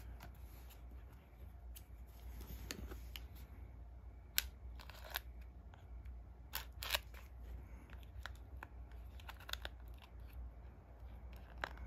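Scissors snipping and plastic shrink-wrap crinkling as the cellophane on a small cardboard box is cut and picked open. A scatter of sharp clicks, the loudest about four and seven seconds in.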